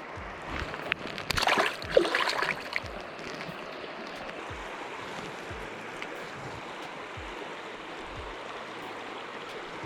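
River water running steadily, with a brief burst of louder noise about one and a half to three seconds in.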